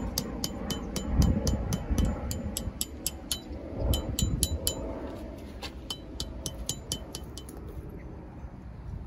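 Background music with a fast ticking beat that fades out about three-quarters of the way through, over wind buffeting the microphone. A few dull thuds come in the first seconds as a hatchet drives a tent peg into hard ground.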